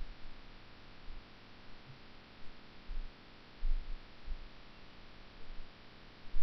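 Steady low hiss and hum with several dull, low thumps of handling noise around the middle, as hands work on a steel computer case.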